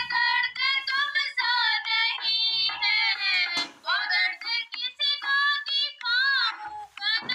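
A high-pitched voice singing a Hindi devotional bhajan, in sung phrases with short breaks between them.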